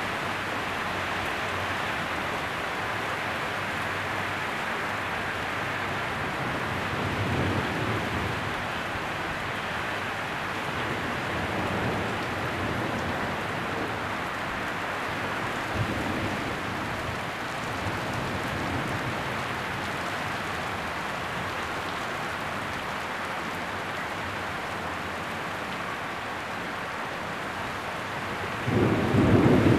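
Heavy thunderstorm rain pouring steadily, with a few low rumbles now and then. A loud burst of thunder breaks in about a second before the end.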